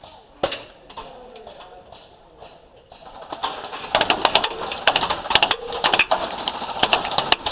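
Airsoft guns firing. A single sharp crack comes about half a second in, then a fast full-auto clicking rattle starts about three seconds in and keeps going.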